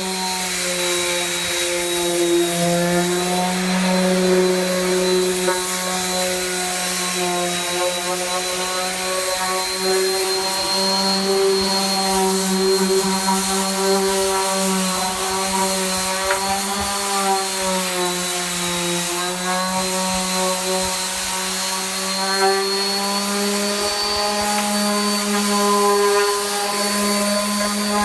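Variable-speed electric sander running continuously while sanding the bottom of an old surfboard: a steady motor hum with a high whine over a rough sanding rasp, the pitch wavering slightly as the pressure changes.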